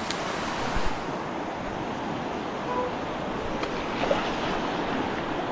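Swollen river in flood rushing over shallow rapids: a steady, even rush of water.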